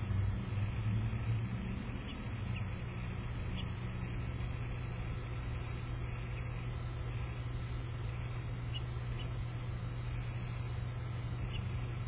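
Steady low mechanical hum, engine-like, a little stronger and more uneven for the first couple of seconds, with a few faint, short bird chirps over it.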